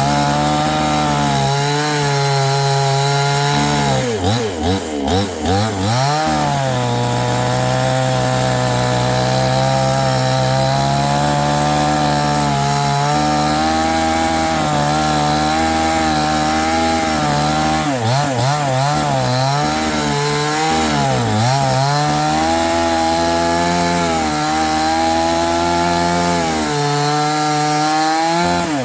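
Chainsaw running at high revs and cutting wood. Its pitch drops and wavers as it bogs down in the cut, about four seconds in and again around eighteen to twenty-two seconds in.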